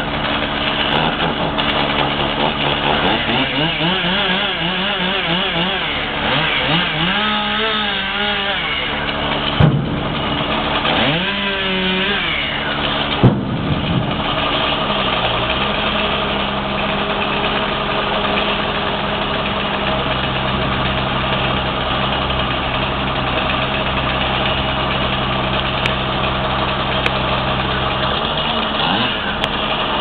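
Bucket truck's engine running steadily, with a wavering tone that rises and falls over it for several seconds and two sharp knocks near the middle.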